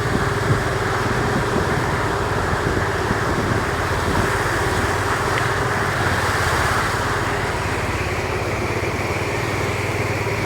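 Motorcycle engine running steadily under a constant wash of road and wind noise.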